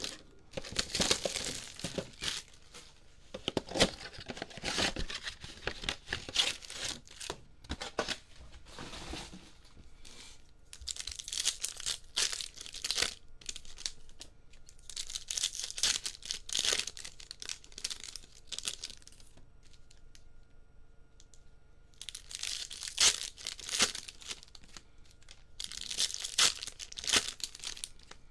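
Shrink wrap and foil trading-card pack wrappers being torn open and crinkled by hand. It comes in repeated crinkling bursts of a second or two, with quieter handling between them.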